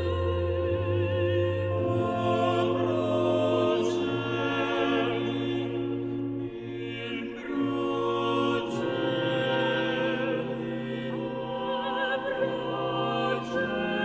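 Background classical music: a singer holding long notes with vibrato over orchestral accompaniment, in the manner of opera.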